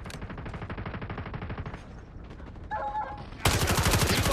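Video-game automatic gunfire: rapid shots at moderate level, a brief pitched sound near the end, then much louder rapid fire starting about three and a half seconds in.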